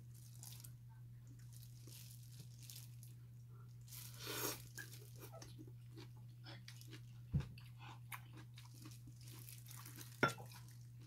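Close-up chewing and crunching of grilled meat eaten by hand, with many small wet clicks. There is a short breathy rush about four and a half seconds in, and two sharp knocks, about seven and ten seconds in, over a steady low hum.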